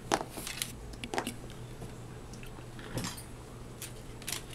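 Laptop parts being handled on a workbench: about half a dozen light, scattered clicks and knocks of plastic and small metal pieces, over a low steady hum.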